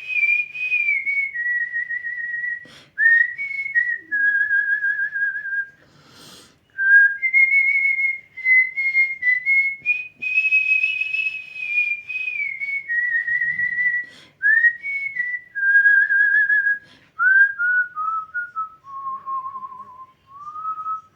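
A person whistling a melody by mouth in artistic whistling style: a single clear tone with vibrato, in held phrases that glide and step downward. A short noisy burst about six seconds in breaks the tune, and the melody settles lower near the end.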